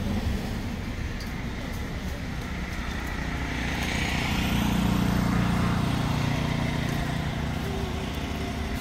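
Road traffic: a motor vehicle passes, growing louder to a peak about halfway through and then fading, over a steady low rumble.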